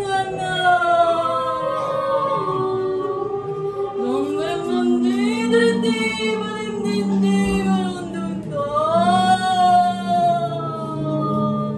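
Wordless singing by several voices together, with long held notes that slide slowly up and down in pitch. A lower held part joins about halfway through.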